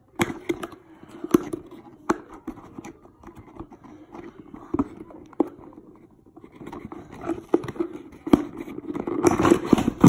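A toy's cardboard box and plastic packaging being opened by hand: irregular clicks, snaps and scraping, with louder rustling near the end.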